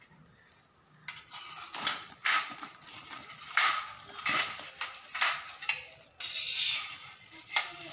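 Clear plastic wrapping crinkling and tearing as it is pulled off a stainless-steel shoe rack, with light clinks and taps from the steel tubes. A longer rustle of the plastic comes about six seconds in.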